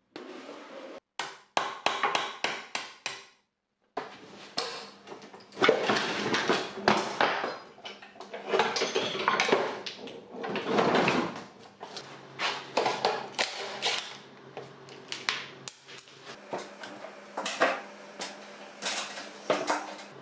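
Repeated metallic clanks, knocks and rattles of steel wheelchair parts being handled and taken apart, broken by short silences near the start. A faint steady hum runs underneath in the second half.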